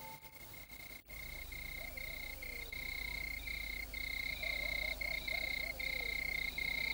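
Night chorus of calling animals: a steady high trill that breaks off briefly about every half second to second, over fainter wavering calls lower down, setting in about a second in.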